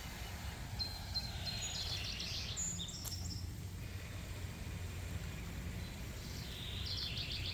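Birds chirping in two short bursts of quick high notes, over a steady low background rumble.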